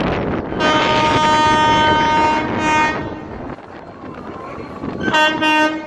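Multi-tone horn of an Indian Railways electric locomotive approaching: one long blast of about two seconds followed at once by a short one, then another short blast near the end.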